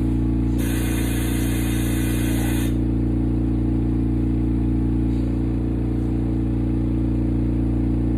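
Steady low mechanical hum that does not change, with a hiss about half a second in that lasts about two seconds and cuts off.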